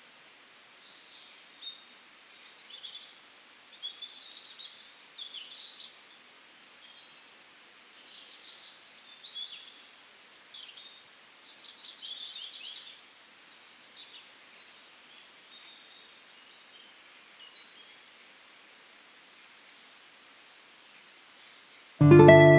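Small birds chirping, with many short calls scattered through, over a faint steady hiss. Acoustic guitar music comes in loudly near the end.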